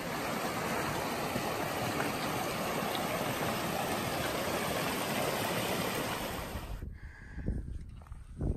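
River water rushing in a steady wash that cuts off suddenly about seven seconds in.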